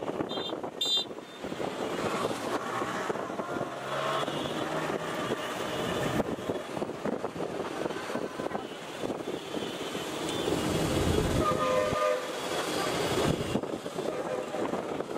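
Commuter train coaches running slowly over curved yard tracks, a steady rumble with rapid clanking. A horn sounds briefly about eleven seconds in.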